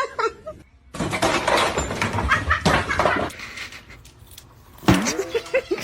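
Short pet animal calls with a bending pitch, at the start and again about five seconds in. Between them, from about one to three seconds in, comes a stretch of scratchy, rustling noise.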